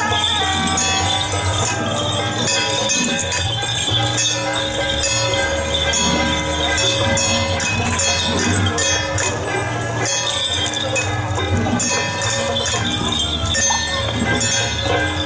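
Taiwanese temple-procession music for a Ba Jia Jiang (Eight Generals) troupe's formation drill: steady low beats and sharp metallic clashes under a bright jingling of bells, with held tones running through.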